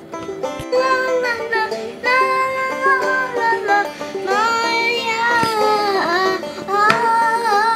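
Background music: a song with plucked strings and singing.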